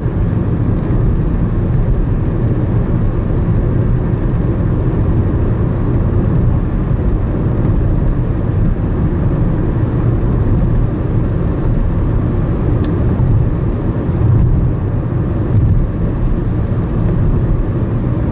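Steady low rumble of road and engine noise from a car driving along a highway, heard from inside the cabin.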